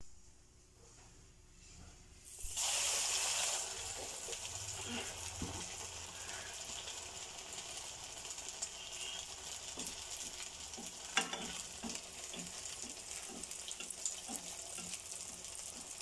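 A breaded jackfruit snack frying in hot oil. After a quiet start, the oil bursts into loud sizzling about two and a half seconds in as the piece goes in. It then settles into a steady frying sizzle with scattered small pops.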